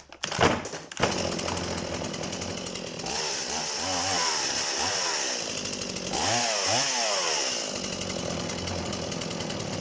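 Stihl MS 180 two-stroke chainsaw engine running, freshly rebuilt with a new cylinder, piston and rings. It settles into a steady run about a second in and is revved up and down in two bursts of throttle. It is running well after the top-end rebuild.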